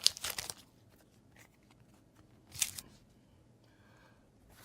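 Foil booster-pack wrapper crinkling briefly, then the handling of trading cards: mostly quiet, with one short rustle of cards about two and a half seconds in and a light click near the end.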